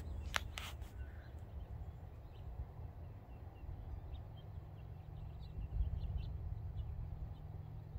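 Quiet outdoor ambience: a steady low rumble, two sharp clicks about half a second in, and faint bird chirps through the second half.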